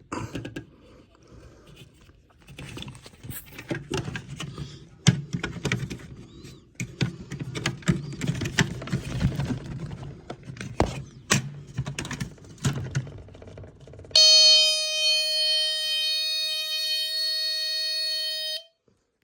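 Clicks, knocks and rustling as a smoke alarm is handled, then near the end the alarm sounds one steady, buzzy tone for about four seconds before cutting off suddenly.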